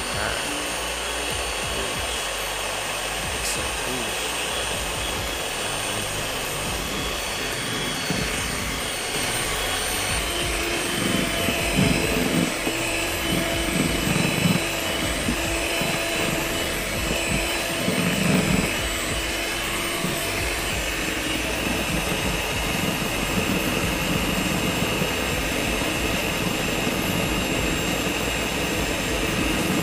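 Miyako electric hand mixer running on low speed, its beaters whirring through thin kue cucur batter of rice flour, wheat flour and palm-sugar syrup. A steady motor hum that gets a little louder about ten seconds in.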